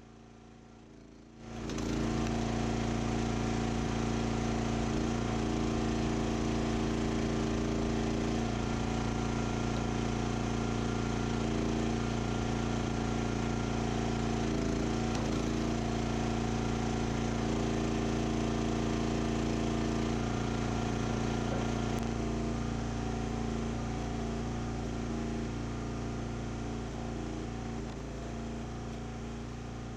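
Engine of a 40-ton hydraulic log splitter running steadily under load while the ram splits red river gum, its note shifting every few seconds as the hydraulic load changes. It cuts in suddenly about a second and a half in, and is somewhat quieter for the last several seconds.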